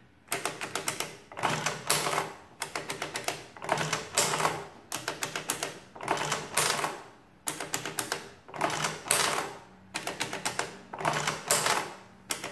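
Sundstrand mechanical adding machine being cycled by its hand crank: about ten pulls in a row, each a ratcheting clatter of the adding mechanism, roughly once a second. The machine is adding figures in a test run after repair.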